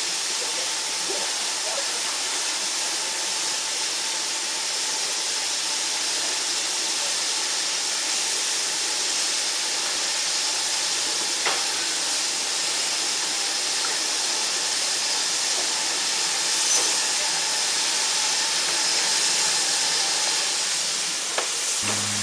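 LMS Ivatt Class 2MT 2-6-0 steam locomotive No. 46521 moving slowly forward with a steady hiss of escaping steam, with a couple of faint clicks.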